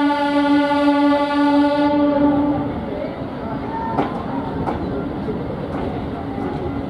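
Diesel multiple unit's horn sounding one long steady blast, a warning to goats on the track, that stops about two and a half seconds in. After it the train's running noise carries on as it pulls away, with wheels clicking over rail joints.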